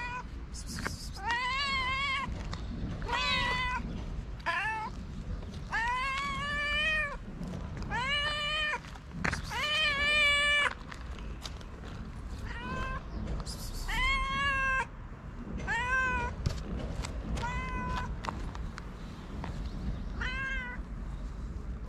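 Hungry stray cats meowing over and over, about a dozen drawn-out meows one to two seconds apart, each rising and then falling in pitch, the loudest in the middle stretch.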